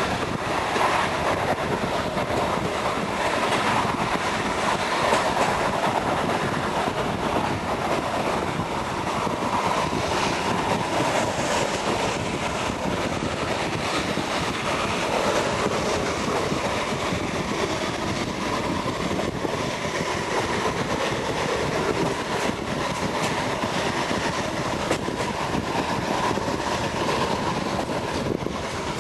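Train hauled by the steam locomotive BDZ 46 03 running along the line: a steady, even rumble of the moving train with faint knocks here and there.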